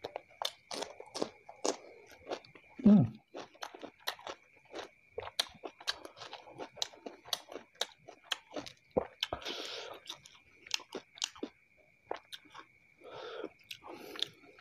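Close-miked chewing with crisp crunching bites of a raw cucumber slice and wet clicking mouth sounds, one louder bump about three seconds in. A faint steady high whine runs underneath.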